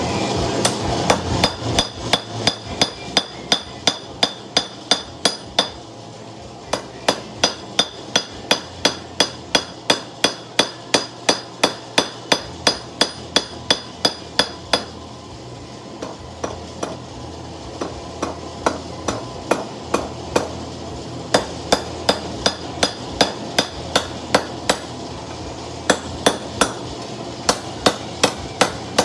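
Hand hammer striking red-hot steel on a post anvil in quick, even blows, about three a second, each with a metallic ring. The blows come in runs broken by short pauses: a knife blade being forged.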